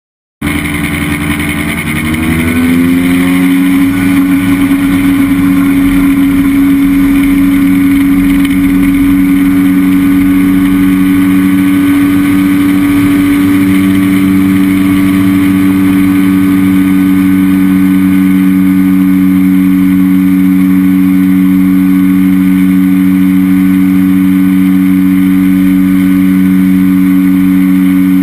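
Chinook Plus 2 ultralight's engine and propeller running up to full power for takeoff. The pitch rises over the first few seconds, then holds steady and loud through the takeoff roll and climb.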